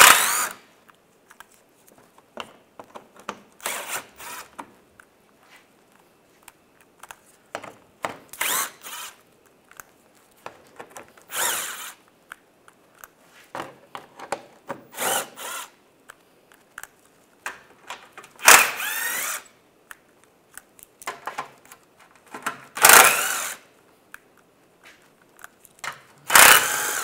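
Cordless power driver with a 10 mm socket spinning bolts out of a car's lower shield, in about eight short runs of under a second to about a second each. Small clicks and handling noise come between the runs.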